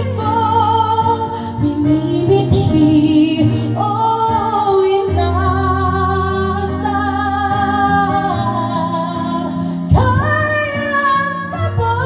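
A woman singing a slow ballad into a microphone over instrumental accompaniment, holding long notes.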